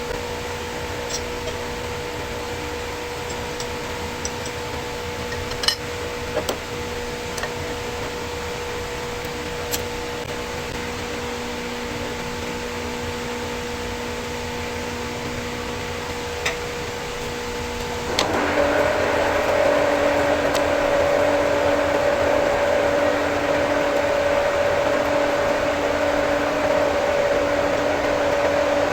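Lathe running with a steady motor hum and a few light clicks. About two-thirds of the way through it shifts to a higher, louder steady whine, as the machine speeds up or starts cutting.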